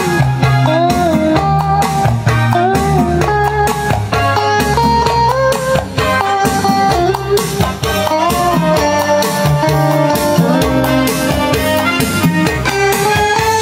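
Instrumental music played through JVC Victor SP-EXA10 wood-cone bookshelf speakers driven by a Luxman A3500 valve power amplifier. A bending lead melody line sits over stepping bass notes and a steady drum beat.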